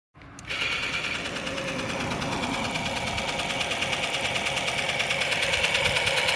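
Toy RC car running: a steady mechanical buzz with a fast, even pulse. It starts about half a second in and grows slightly louder.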